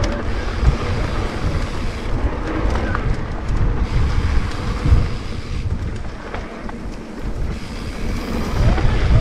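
Wind buffeting the microphone of a camera on a moving electric mountain bike, a steady low rumble with tyre noise and short knocks from the bike going over bumps on the trail.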